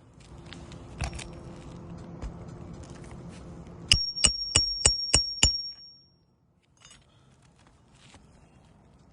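Rustling and handling noise, then six quick metallic strikes in a row, each leaving the same high ringing tone.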